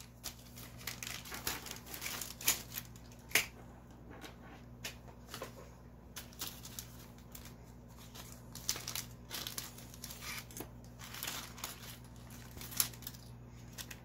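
Small clear plastic zip bags of electronic parts crinkling as hands handle and pull them open, with irregular sharp crackles.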